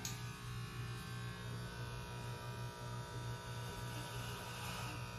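Corded electric hair clippers running with a steady buzz, the blades working through short hair at the side of the head.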